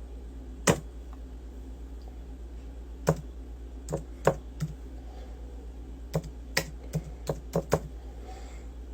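About a dozen irregular sharp clicks, sparse at first and then in a quicker run near the end, over a steady low hum.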